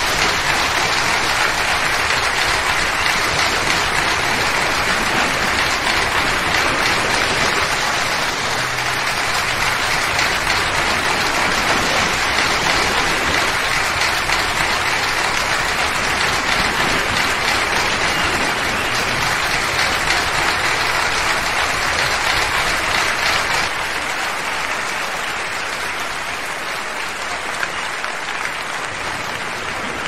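Audience applauding, a long steady round that eases off a little about three-quarters of the way through.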